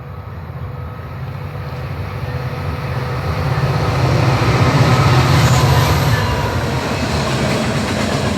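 Train approaching on the tracks and going by: a low rumble that grows steadily louder over the first four seconds or so, then stays loud.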